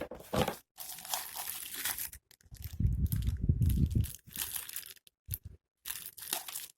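Packaging being handled and crinkling during an unboxing, in several rustling bursts, with a louder low rumbling bump from handling near the middle.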